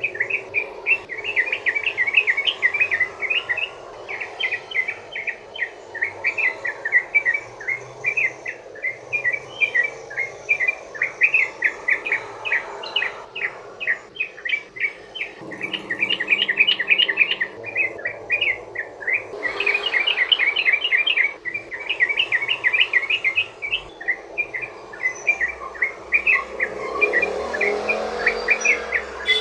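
Yellow-vented bulbul (trucukan) singing a long, rapid rolling song of short, bright chattering notes in quick runs, with brief breaks twice.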